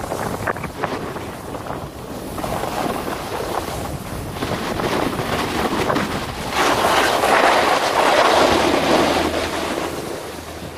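Snowboard sliding and scraping over packed snow, with wind on the microphone. The scraping gets louder about two-thirds of the way through, then eases near the end.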